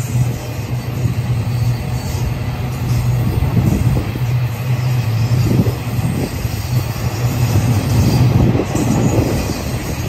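Welded rail train's loaded rail-carrying cars rolling past, steel wheels running on the track with a steady low hum and occasional rattles.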